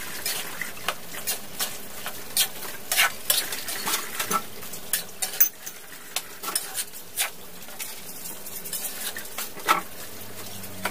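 Long metal spatula scraping and clinking irregularly against a large metal wok while stir-frying chayote cubes and fried tofu, over a steady frying sizzle.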